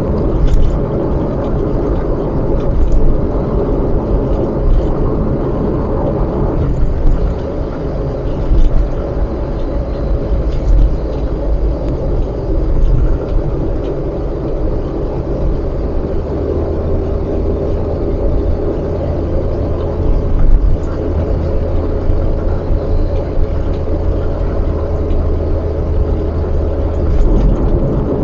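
Steady road and engine noise of a moving car heard from inside, a low drone that grows stronger about halfway through and holds for about ten seconds.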